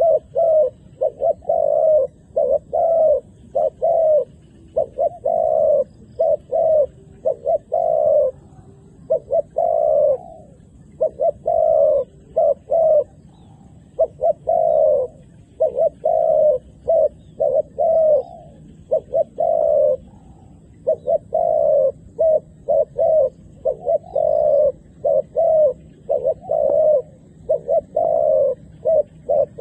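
Spotted dove cooing over and over: short, low coos in quick runs of three to five with brief pauses between runs. It is a decoy dove's call, used to lure wild doves down to the ground.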